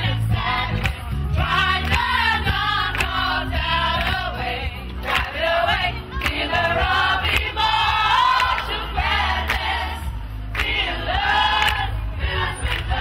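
Music with singing voices over a steady, strong bass line.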